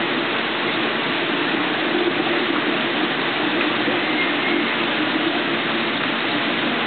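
Steady rushing of water circulating through a large reef aquarium, its pumps and overflow running continuously, with a low wavering hum under the splash.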